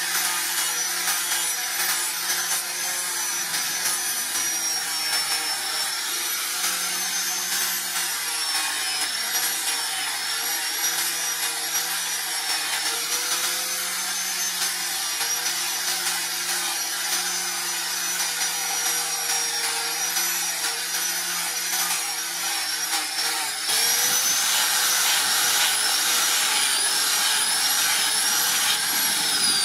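Electric angle grinder with a sanding pad running steadily against a steel knife blade, its motor whining high with a slight waver in pitch. About 24 s in it changes to the same kind of grinder sanding a wooden plank, a little louder.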